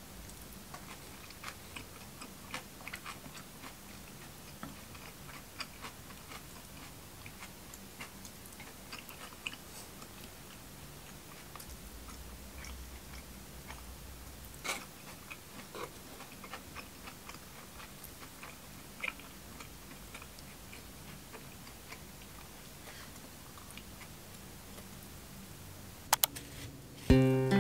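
Quiet eating: chewing with scattered light clicks of wooden chopsticks against wooden dishes. Music comes in near the end.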